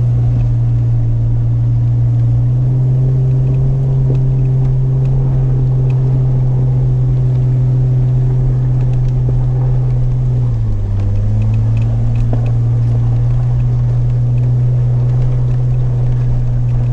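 Jeep Wrangler's engine droning steadily, heard from inside the cab as it crawls along an off-road trail. Its pitch dips and settles again about ten seconds in.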